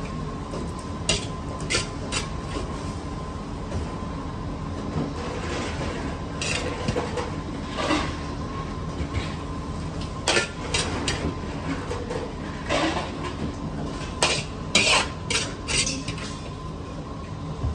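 Metal utensils clinking and clattering against plates and dishes in scattered, sharp knocks. A steady kitchen hum with a faint tone runs under them.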